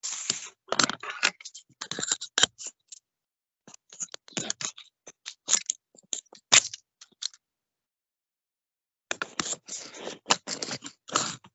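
Bursts of irregular scratchy clicks and scraping, each lasting a few seconds, broken twice by dead silence.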